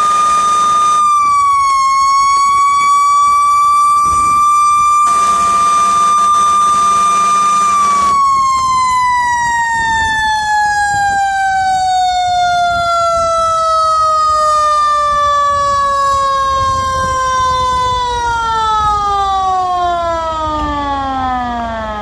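Fire engine siren holding one high, steady pitch, then winding down in a long, slow fall in pitch from about eight seconds in, dropping faster near the end.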